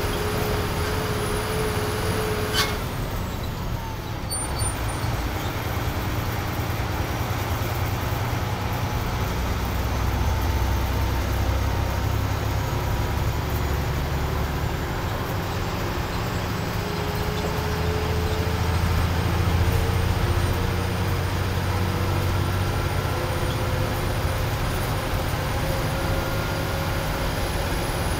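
Bus engine running with tyre and road noise, heard from inside the cabin. A faint whine climbs slowly in pitch through the second half.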